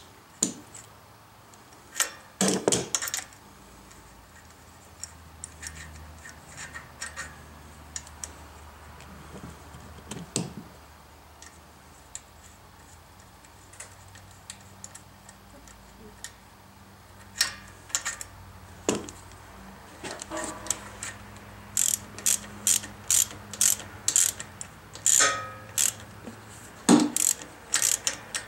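Hand socket ratchet clicking in short spells as a bolt is snugged down into a freshly rethreaded hole in a lawn mower's cylinder head. The clicks come in a quick, dense run through the last third.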